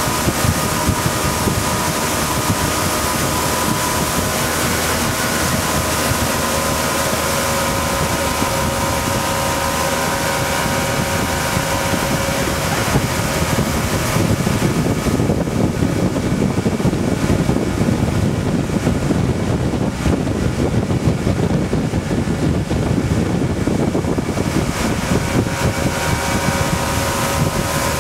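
Motorboat engine running steadily while towing at speed, with wind buffeting the microphone; the wind rumble grows heavier for several seconds past the middle.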